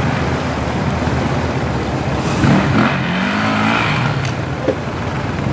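Off-road vehicle engine running steadily, revving up with a rising pitch about two and a half seconds in, then settling.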